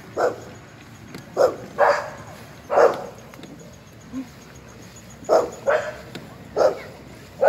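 A dog barking: about seven short barks at uneven intervals.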